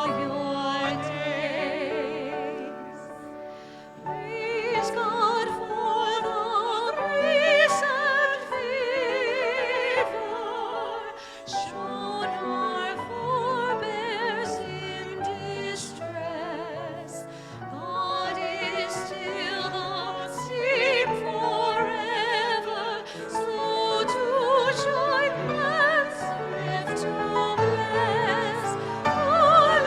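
Trained singing with strong vibrato over sustained instrumental accompaniment, a sung piece of worship music.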